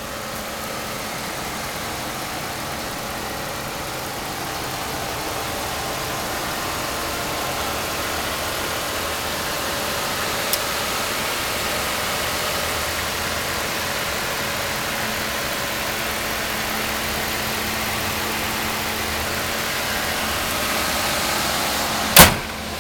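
5.7-litre Hemi V8 of a 2008 Dodge Ram 1500 idling steadily with a constant low hum, heard close to the open engine bay. A single sharp knock near the end.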